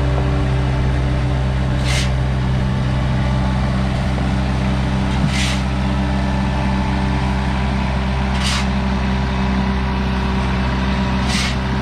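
Kymron ZX22 mini excavator's engine running steadily, with four short hisses at even spacing, about one every three seconds.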